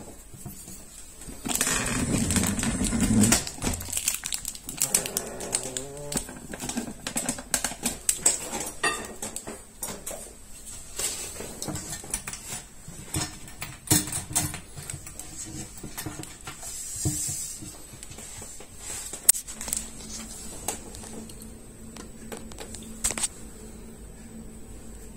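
Hands handling a plastic soft-close toilet seat and lid, with a loud rubbing stretch a couple of seconds in, then many irregular clicks and knocks of plastic.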